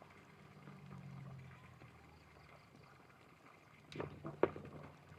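Two or three sharp knocks in quick succession about four seconds in, typical of taps on the stingless-bee hive box, over a faint low hum.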